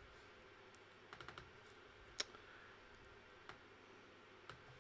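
Faint, sparse computer keyboard key clicks: a few taps about a second in, a single sharper click about two seconds in and a couple more later, over quiet room tone.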